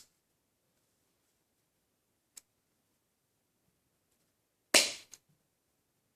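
Dog nail clippers cutting through nails: a faint click about two seconds in, then a loud, sharp crack just before the five-second mark, followed by a smaller click.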